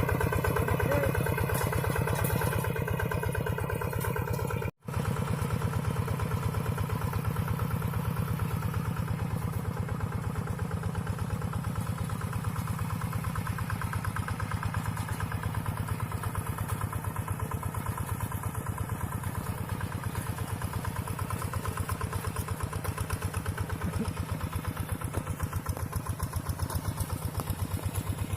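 Single-cylinder diesel engine of a Quick two-wheel hand tractor running steadily with an even, rapid pulse while ploughing. The sound drops out for a split second about five seconds in.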